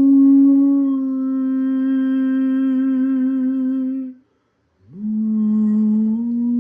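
A man singing a wordless sound-healing melody in long held notes with a slight vibrato. The first note breaks off about four seconds in; after a short gap, a new note slides up from low and steps up a little near the end.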